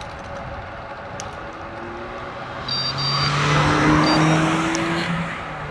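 A car passing the bike closely: tyre and engine noise swells from about halfway in, peaks, then fades. A few short high beeps sound as it comes past.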